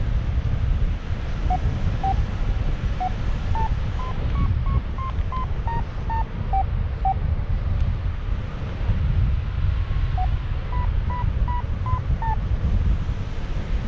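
Paragliding variometer beeping in short tones, their pitch stepping up to a peak about four seconds in and then back down, then a pause and a second run of beeps near the end: the vario signalling weak lift. Under it, steady wind rumble on the microphone from the airflow in flight is the loudest sound.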